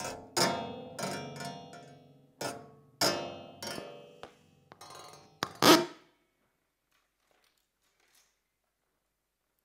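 Amplified found objects on a tabletop, such as metal springs, racks and glassware, struck and plucked through contact microphones: a run of about ten sharp metallic hits and twangs, each ringing and dying away, over the first six seconds, the loudest one near the end of the run.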